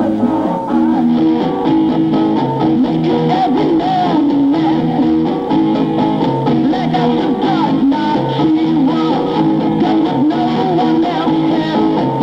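Guitar-led music playing steadily, with no pause.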